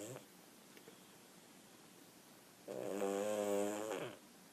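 A pug snoring: the tail of one snore right at the start, then one long, pitched snore starting about three seconds in and lasting over a second.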